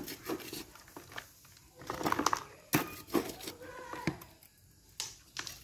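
Scattered rustles, taps and soft clicks of hands working potting mix around an anthurium and brushing its leaves in a pot.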